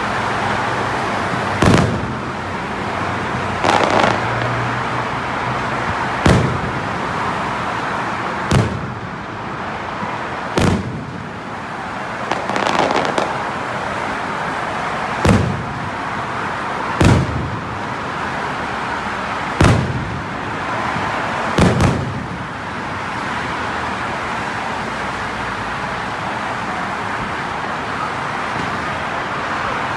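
Fireworks display: about nine loud firework bursts, one every two seconds or so, over a steady background hiss. The bursts stop about two-thirds of the way through.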